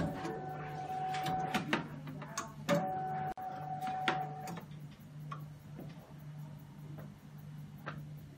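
Hematology analyzer running its startup cycle: a steady low motor hum, a whine that runs in two spells over the first half, and scattered sharp clicks from its internal mechanism.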